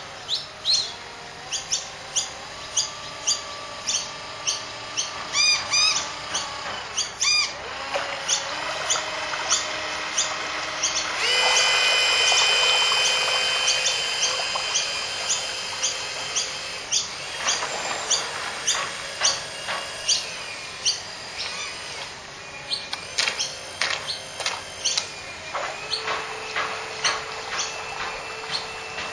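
Whine of a radio-controlled model boat's twin geared 550 electric motors, the pitch stepping up and down as the throttle changes. It is loudest and fullest in a stretch about a third of the way in. Short bird chirps repeat about twice a second throughout.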